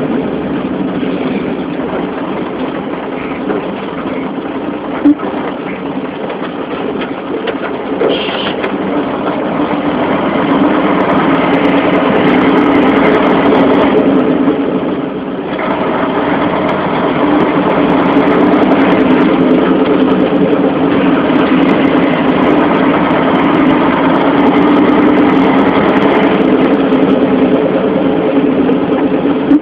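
Heavy vehicle engine running steadily, growing louder about ten seconds in, with a short drop in level around fifteen seconds in before it steadies again.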